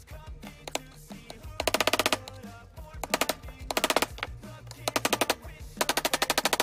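A claw hammer tapping small cable staples into a wooden board to hold cotton rope, in five short runs of very fast strikes.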